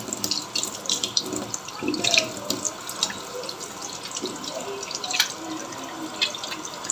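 Tap water running into a stainless steel sink as a whole raw chicken is rinsed and rubbed by hand under the stream, with irregular splashes.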